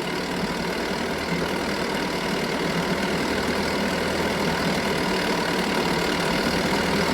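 Chrysler 4.4 hp two-stroke outboard motor running steadily at low speed in gear, growing slightly louder toward the end.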